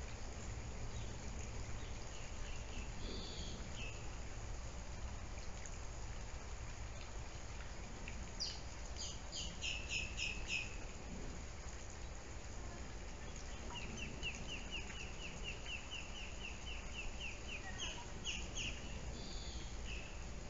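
Birds chirping over a steady low hum: a quick cluster of high chirps about halfway through, then a long even trill of rapid notes, about five a second, later on.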